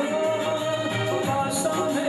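Devotional song with singing over instrumental backing; a long held note runs through most of it.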